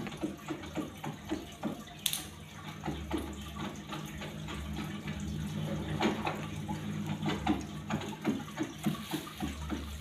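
Running, splashing water with many small irregular trickles, over a steady low hum.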